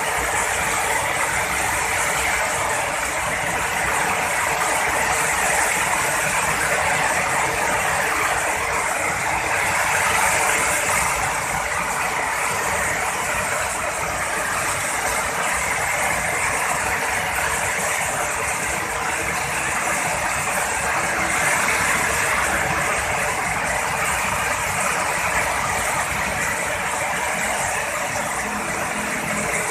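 Heavy rain falling in a steady downpour, its hiss swelling slightly now and then.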